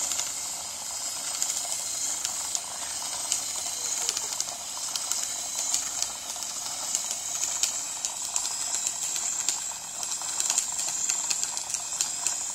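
Small remote-control helicopter's electric motor and rotor running with a steady high whirring hiss and scattered rattling clicks, unable to lift off: too much weight for it to take off.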